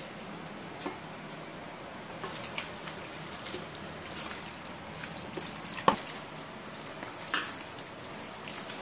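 Hands squishing raw chicken pieces through a thick, wet beetroot-chilli marinade in a stainless steel bowl, with scattered soft ticks and two sharp clinks against the bowl, the louder one about six seconds in.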